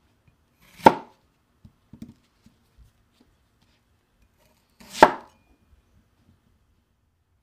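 Large kitchen knife chopping down through a peeled whole onion onto a wooden cutting board: two sharp chops about four seconds apart, the second cutting the onion in half.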